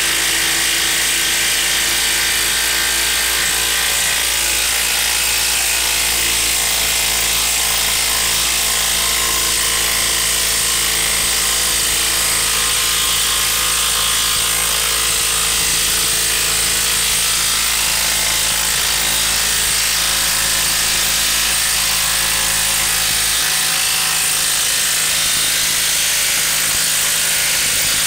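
Makita XWT11 18V half-inch cordless impact wrench hammering steadily at full trigger, driving a 10-inch screw into a log with no let-up. The tool is struggling, sinking the long screw only slowly.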